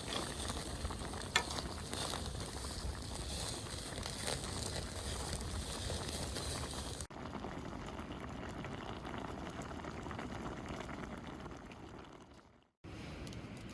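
Food cooking with a steady sizzling, bubbling hiss and a single click early on; about halfway the sound cuts abruptly to a quieter, duller hiss that fades out near the end.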